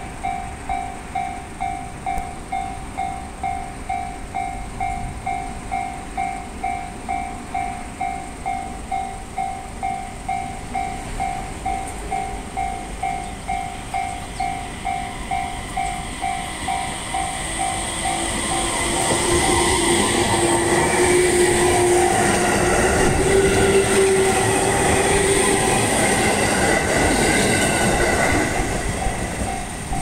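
Japanese level-crossing bell ringing evenly at about two strokes a second. About halfway through, a JR East 701 series electric train accelerating away from the station grows louder and passes the crossing: rail and running noise, with a motor whine rising in pitch. The train drowns out the bell, which is heard plainly again at the end.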